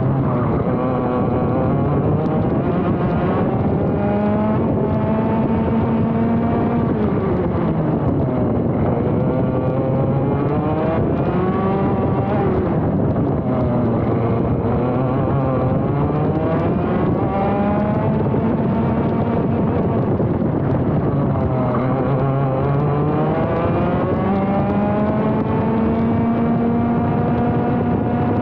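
Single-cylinder two-stroke ROK GP Junior kart engine at racing speed, heard onboard. Its pitch climbs steadily for several seconds as it accelerates and drops quickly when the driver brakes, several times over as the kart goes from corner to corner.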